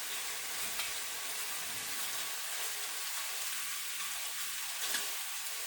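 Chicken drumstick pieces sizzling steadily as they fry in vegetable oil in a pan.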